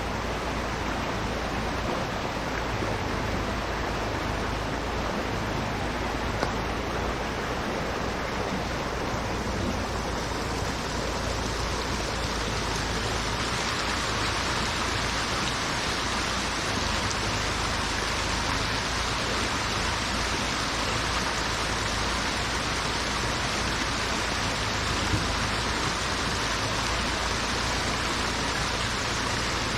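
Steady, even hiss of water, with no break, growing fuller and brighter about thirteen seconds in.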